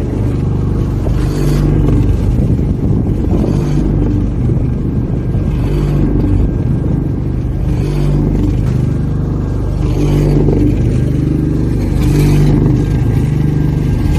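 Hollow-core concrete slab machine running: a steady low mechanical drone with a faint whine, swelling in brief louder surges about every two seconds.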